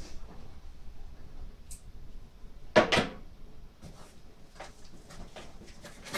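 Cardboard box being pulled and wrestled to free the PC case inside: scattered knocks and scrapes, with one loud bump about three seconds in. The case is caught on the box's side handles.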